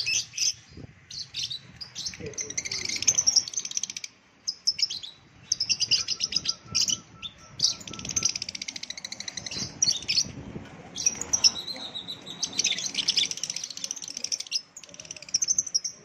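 Caged lovebirds chattering: dense, overlapping high-pitched chirps and rapid trills, almost continuous with a couple of short lulls.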